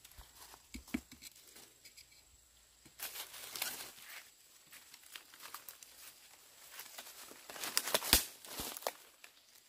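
Dry bamboo leaf litter crackling and rustling as a knife scrapes and chops at the soil around the base of a bamboo shoot, with a sharp knife strike near the end as the loudest sound.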